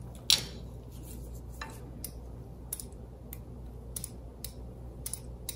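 Pastry wheel cutter slicing strips in soft dough on a silicone mat: a string of short clicks as the wheel strikes and runs along the mat, the strongest a moment after the start and the rest roughly one every half-second to second, over a low steady hum.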